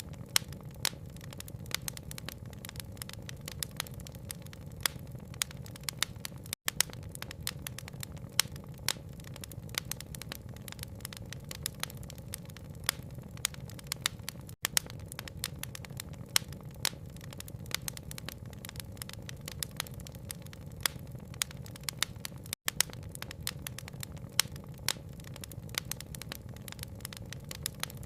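Crackling wood fire with frequent sharp pops and snaps over a steady low rumble and hiss of rain. It is a brief gap about every eight seconds.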